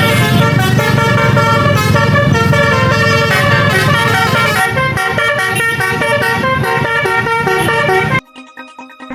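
Bus basuri musical horn playing a melody of held notes that step from pitch to pitch over a low rumble, cutting off suddenly near the end.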